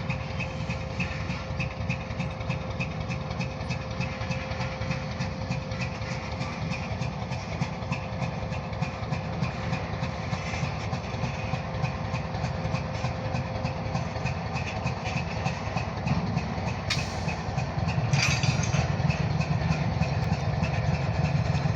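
Diesel locomotive engine running as a short freight train moves along the track, with a steady low rumble. It gets louder about three-quarters of the way through.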